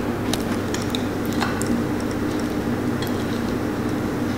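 Faint soft squishes and light clicks of hands handling a raw gurnard on a ceramic platter, over a steady room hum.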